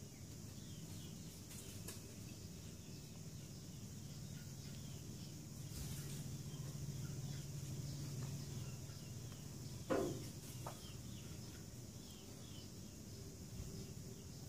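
Faint background ambience: a steady low hum with soft, repeated high chirping, and one short falling squeak about ten seconds in, the loudest sound.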